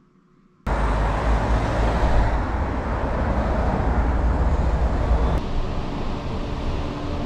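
Traffic and road noise heard from inside a moving car: a loud, low rumble that starts abruptly under a second in. The deep rumble drops away about five seconds in, leaving a lighter steady noise.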